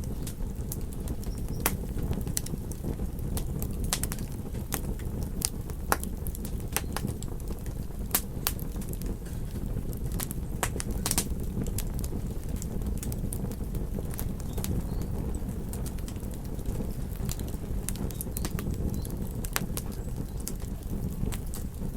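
Wood fire crackling: irregular sharp pops and snaps over a steady low rumble of burning flames.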